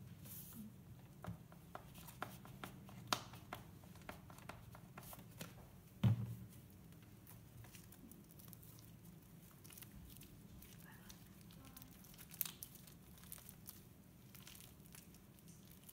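Thick, putty-like slime being kneaded and squeezed by hand as lotion is worked in to soften it, giving many faint sticky crackles and small popping clicks. One louder soft thump comes about six seconds in.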